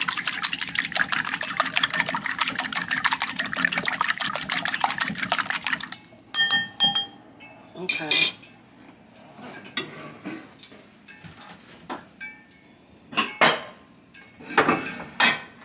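A fork beats eggs and milk in a glass bowl: a fast, steady clicking of metal on glass that stops about six seconds in. After that come scattered clinks and knocks of dishes being set down and moved on the counter.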